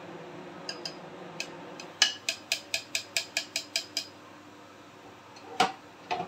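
A white spatula tapped quickly against the glass bowl of a food chopper, about ten sharp clinks in two seconds, knocking off ground haleem paste. A single louder knock comes near the end.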